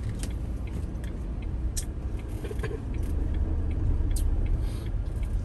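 Low rumble of a Ford's engine and tyres heard from inside the cabin as it moves slowly in traffic, a little louder after about three seconds, with a few light clicks.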